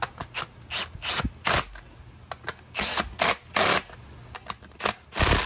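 Irregular sharp clicks and knocks of hand tools and parts as a motorcycle's dash is fastened to its bracket, with the loudest knock near the end.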